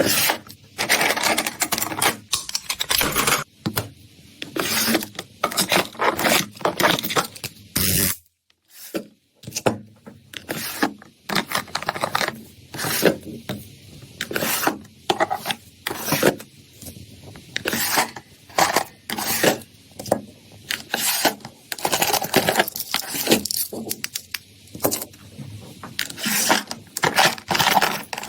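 Irregular rubbing and scraping noises in quick clusters, broken by a pause of about a second near a third of the way in.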